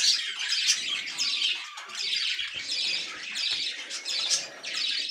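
Budgerigar nestlings calling without a break in a quick, raspy chatter of short squawking chirps.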